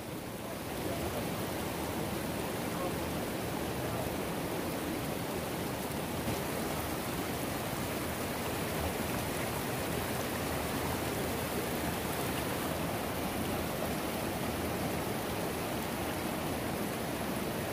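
Steady rushing of a rocky mountain river: water running over stones, an even noise that holds unchanged without a break.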